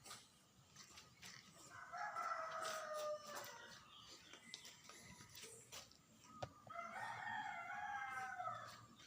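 Rooster crowing twice, each crow a long drawn-out call of about one and a half to two seconds, with scattered light clicks between.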